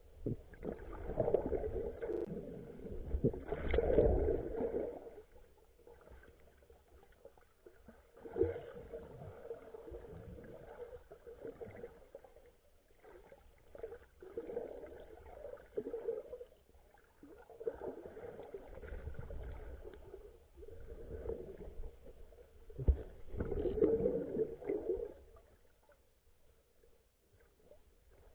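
Muffled water sloshing and gurgling, as heard underwater, swelling and fading in irregular surges, loudest near the start and again about 24 seconds in.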